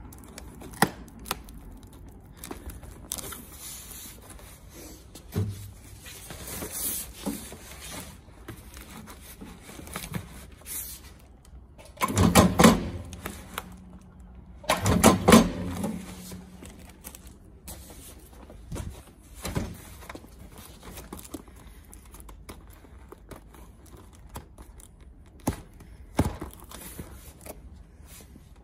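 Cardboard and its taped plastic wrapping rustling and crinkling as they are handled and fed into a Stago electric bench stapler. Near the middle come two louder mechanical bursts about three seconds apart, each lasting about a second: the stapler driving staples into the cardboard.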